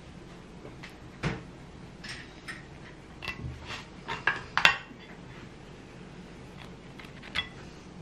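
A few light knocks and clinks from tabletop handling: a ceramic plate and a squeeze bottle being moved and set down. The sharpest knock comes about four and a half seconds in.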